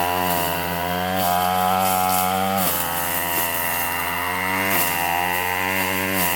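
Two-stroke gas weed eater fitted with a brush-cutting blade, running at high throttle while clearing heavy brush; its engine note drops sharply a couple of times and climbs back as the blade loads up and frees.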